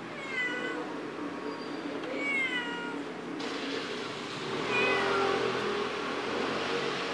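Tortoiseshell cat meowing three times, a couple of seconds apart, each call short and dropping in pitch.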